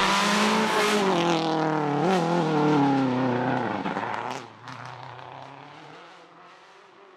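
Rally car engine at high revs, its pitch falling steadily, with a brief wobble about two seconds in. It then fades away over the last few seconds.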